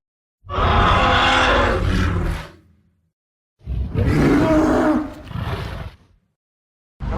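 Two separate roar sound effects, each about two seconds long, with dead silence before, between and after them. The second roar trails off into a quieter growl.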